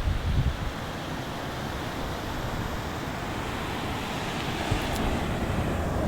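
Sea waves washing on the shore as a steady rush that swells towards the end, with wind buffeting the microphone in the first half-second.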